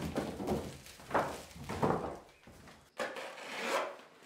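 Rubbing and scraping on a bare wooden plank floor as a roll of soundproofing underlay is moved and unrolled across it, in about four separate swishes, the last one the brightest.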